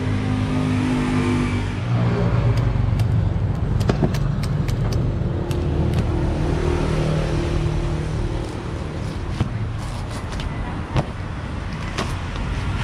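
Passing road traffic, with motor vehicle engines running and one revving near the start. A series of sharp clicks and cracks comes over it as a knife cuts into a durian's spiky husk.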